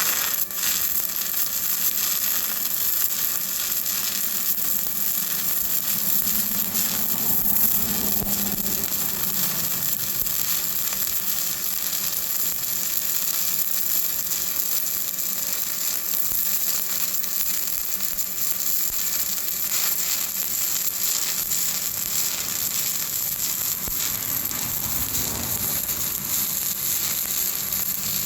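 Stick welding arc burning a 7018 electrode in a vertical-up (3G) joint: a steady crackling sizzle that runs on without a break.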